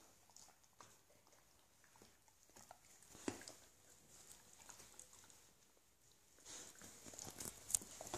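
Faint wet licking and mouthing sounds of a dog and a cat grooming each other, with soft scattered clicks. Near the end it gets louder, with rustling and a sharp tap as the two tussle against the leather sofa.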